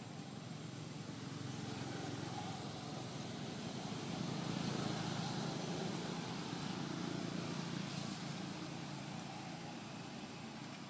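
A motor vehicle's low engine rumble, swelling to its loudest about halfway through and then fading as it passes.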